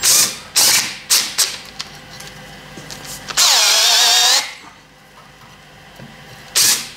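Cordless drill fitted with an 8.5 mm bit on a carbon fibre plate: several short, sharp bursts in the first second and a half, then about three and a half seconds in the motor spins up with a rising whine and runs for about a second.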